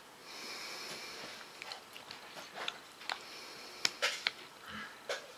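A person eating close to the microphone: soft breathing and chewing, with a few short sharp clicks scattered through the second half.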